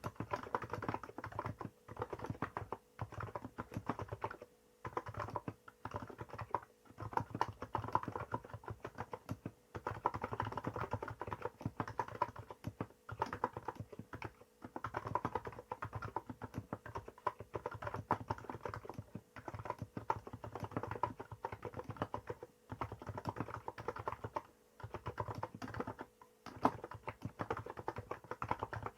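Typing on a Hansung GK868B electrostatic-capacitive keyboard with 50 g switches and Apple-style keycaps. The keys go in fast continuous runs with brief pauses every few seconds.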